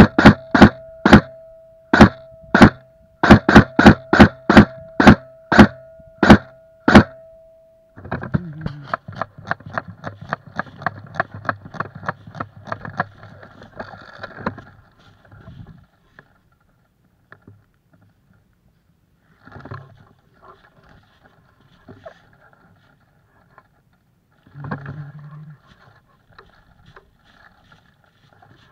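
An airsoft gun firing about fifteen loud, sharp single shots over the first seven seconds, with a steady tone beneath them. Then fast footsteps running through dry fallen leaves, thinning to a few scattered steps.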